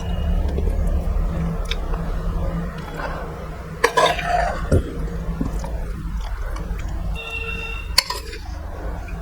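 A person chewing a meal, with two sharp clinks on a plate, about four and about eight seconds in, over a steady low hum.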